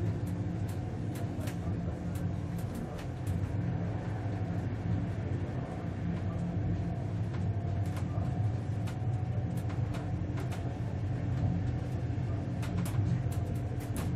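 German ICE high-speed train riding along: a steady low rumble of the running train, with faint steady hum tones and scattered light clicks and rattles.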